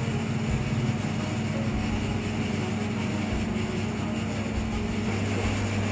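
Steady low machine hum, an even drone that does not change, over the general noise of a street.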